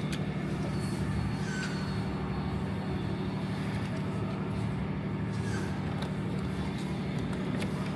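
A steady low mechanical hum with occasional light clicks and knocks.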